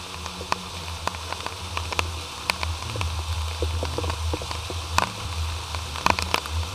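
Muffled underwater sound heard through a submerged camera housing in a flooded storm-drain pipe: a low steady hum under a crackle of scattered clicks, with a cluster of sharper clicks about six seconds in.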